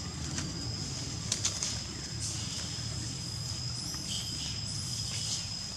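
Outdoor forest ambience: a steady high-pitched whine over a low rumble, with a few faint clicks about a second and a half in.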